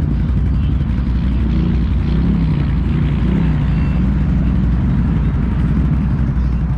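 ATV engine running, its revs rising and falling.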